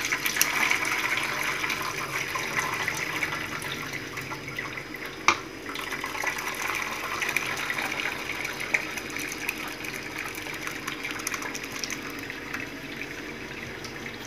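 Curdled milk (curds and whey) poured from a steel pot into a fine wire-mesh strainer over a steel bowl: a steady splashing pour that slowly grows quieter. About five seconds in there is a single sharp clink.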